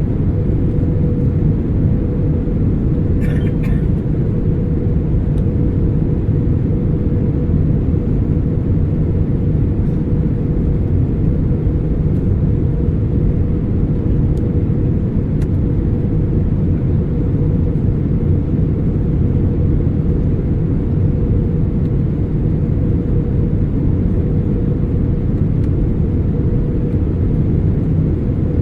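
Airbus A320 cabin noise in flight: a steady rumble of engines and airflow with a steady hum. There is a brief faint clatter about three seconds in.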